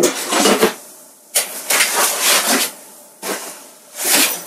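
Rustling as things are handled and taken out of a box, coming in several bursts of about a second each.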